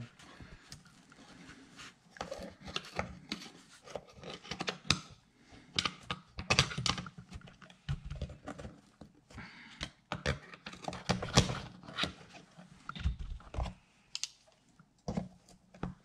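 Small hand tools clicking, tapping and scraping against a metal truck door handle assembly in irregular bursts, as a small retainer is worked off the key lock tumbler.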